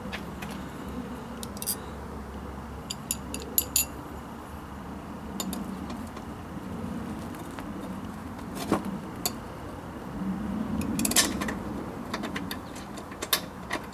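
Scattered light metallic clicks and clinks, with small clusters about three seconds in and again near eleven seconds, as motorcycle seat hardware and screws are handled and fitted.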